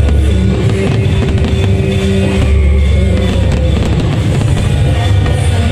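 Loud music with heavy bass and drums.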